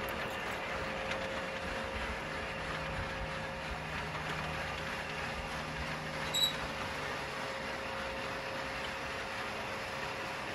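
Electric roller shutter garage door opening: the motor hums steadily as the steel slats roll up. A short high chirp about six seconds in.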